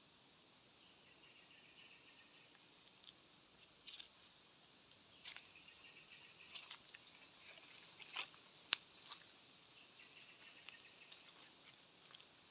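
Faint insect chorus in forest, with a handful of short sharp cracks or snaps scattered through the middle, the loudest about nine seconds in.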